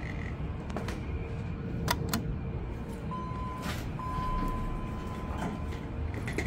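Old garage elevator being called and boarded: a low steady rumble and faint hum, two sharp clicks about two seconds in, then a steady high beep lasting almost three seconds with a short break.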